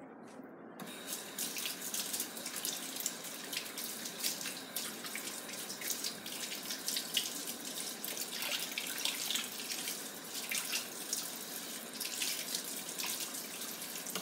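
Kitchen tap running into a stainless-steel sink, water splashing unevenly as a raw chicken piece is rinsed under the stream. The water starts about a second in.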